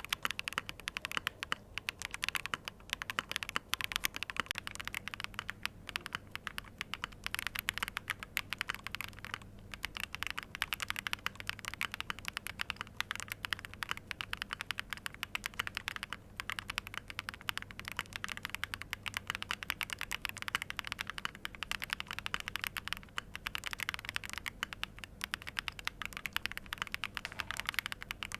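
Fast typing on a ZOOM75 TIGA mechanical keyboard fitted with BSUN Snow Diane switches and Chemical 001 keycaps: a dense, steady run of keystrokes with brief pauses about nine and sixteen seconds in.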